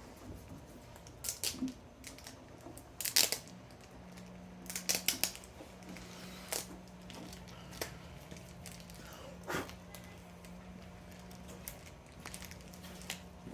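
New rubber gasket being worked by hand onto the wing-window glass: irregular scrapes, rubs and clicks. A steady low hum runs underneath from about four seconds in.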